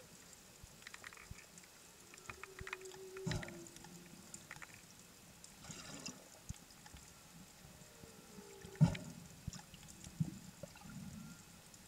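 Underwater sound of faint humpback whale song: drawn-out moans that hold a pitch or slowly fall. It sits over a bed of crackle and scattered clicks, with one loud low thump about nine seconds in.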